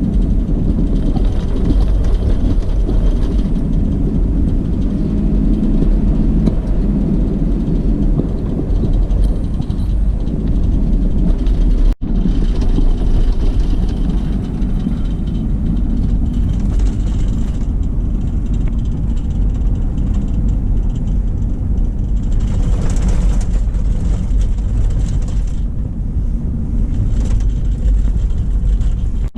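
Car driving on the road: a steady low rumble of engine and tyre noise, with a brief cut about twelve seconds in.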